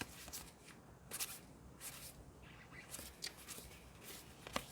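Pokémon trading cards being thumbed through by hand: quiet, irregular swishes and flicks of card sliding over card.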